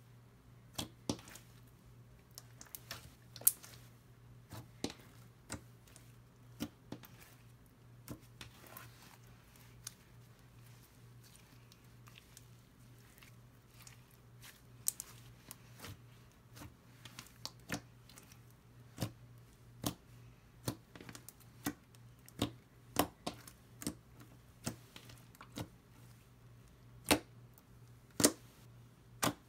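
Jelly slime being squished and poked by hand, giving irregular sharp clicks and pops over a low steady hum.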